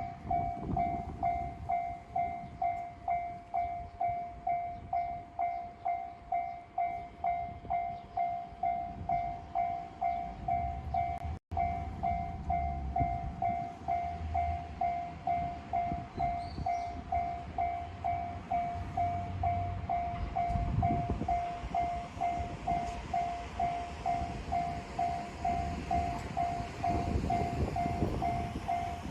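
Japanese railroad crossing warning bell sounding steadily, a little under two strokes a second, with the low rumble of a passing train underneath. The sound cuts out for an instant about eleven seconds in.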